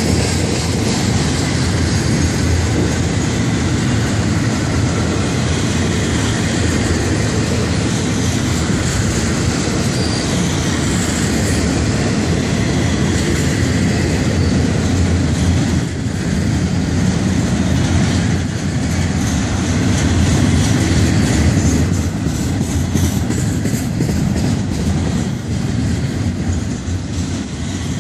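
Intermodal freight train's container cars rolling past at close range: a loud, steady rumble and clatter of steel wheels on the rails.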